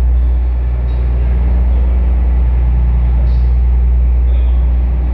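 Small harbour ferry's engine running under way, a loud steady low drone, as the boat closes on its landing pier.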